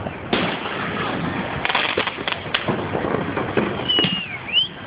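Fireworks going off in an irregular run of sharp pops and bangs. Near the end a short whistle glides down and then back up.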